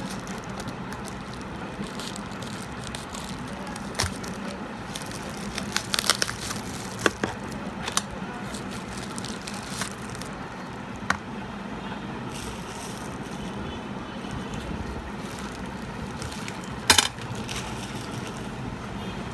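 Packaging being handled: scattered clicks and crinkles, a cluster of them in the middle and the loudest near the end, over a steady low background hum.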